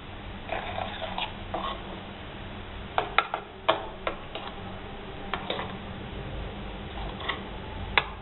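Metal spoon stirring a thick, wet paste in a bowl: scraping at first, then irregular clicks and taps as the spoon knocks against the bowl.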